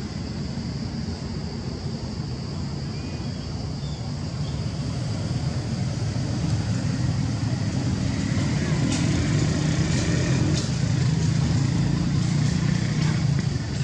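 A motor vehicle engine running nearby, a low rumble that grows louder from about six seconds in. A few faint clicks are heard near the end.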